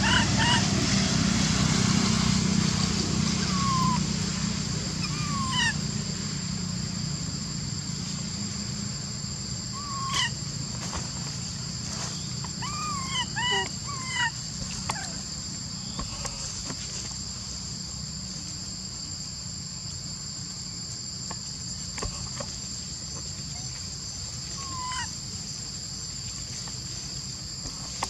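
Outdoor ambience of insects droning steadily at two high pitches, with short rising-and-falling chirps scattered through it, several in a cluster near the middle.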